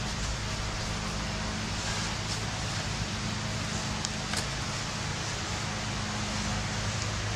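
Steady background noise: a low hum under an even hiss, with a couple of faint clicks about four seconds in.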